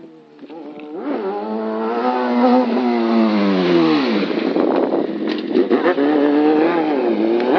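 Suzuki GSX-R sportbike's inline-four engine revving hard as the bike accelerates: its pitch climbs for about two seconds, drops away sharply about four seconds in, then climbs again.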